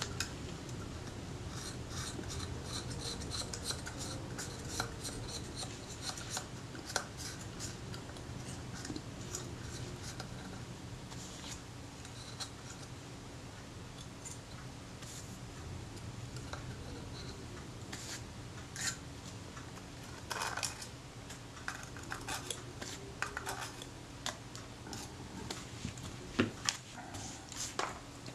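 Scalpel blade scraping softened, jelly-like old adhesive off the metal base of a Kodak Retina IIIS camera body in short, irregular scratching strokes, over a faint steady hum.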